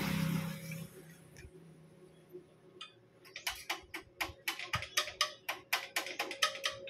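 A rush of noise fading out in the first second, then a quick run of sharp clicks, about four or five a second, for the last four seconds, from hand work at the end of a twin-cam cylinder head.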